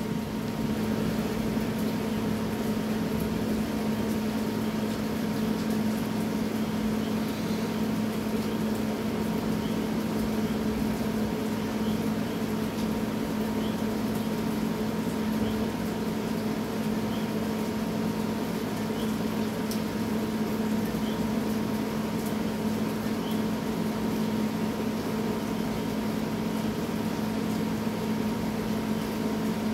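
A steady mechanical hum holds one constant pitch with a few fixed overtones over a soft, even hiss, unchanging throughout.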